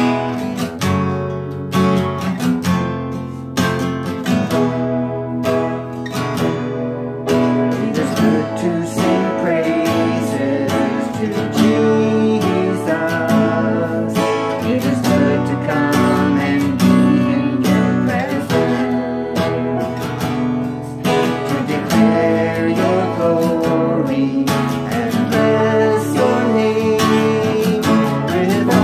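Yamaha acoustic guitar strummed in steady chords, accompanying a man singing a worship song; his voice comes in about eight seconds in.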